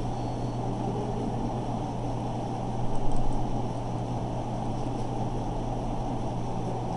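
Steady background hum and hiss of room or recording noise, with a brief louder patch about three seconds in.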